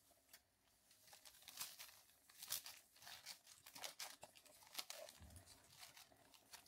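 Faint crinkling and tearing of packaging: a string of short, sharp rustles, busiest in the middle.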